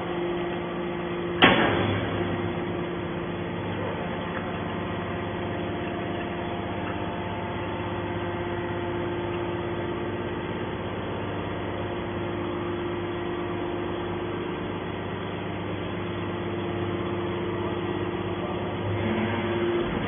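Hydraulic scrap metal baler running as its ram pushes a compressed scrap metal bale out of the chamber: a steady hum from the hydraulic power unit, with one sharp metallic bang about a second and a half in.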